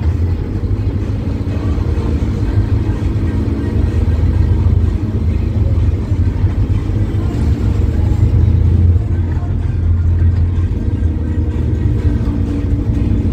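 A Scania K270UB bus's rear-mounted five-cylinder diesel engine, heard from inside the passenger cabin while driving. It makes a steady, heavy low rumble, with engine tones that strengthen and fade as it pulls.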